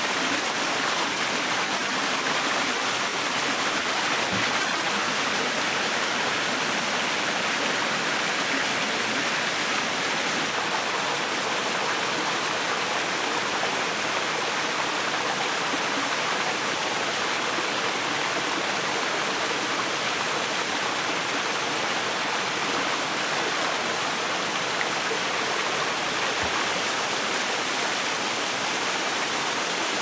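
Steady rush of flowing water, an even unbroken hiss of a stream's current.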